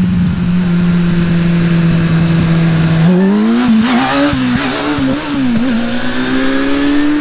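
Kawasaki inline-four sport bike's exhaust, holding a steady engine note. About three seconds in, the throttle opens and the pitch climbs, wavering as the throttle is rolled on and off, then rises smoothly.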